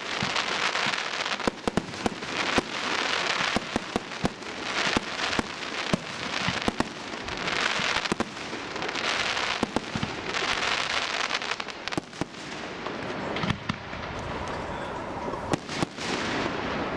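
Aerial firework shells bursting in a display: many sharp bangs at irregular intervals throughout, over a rushing hiss that swells and fades.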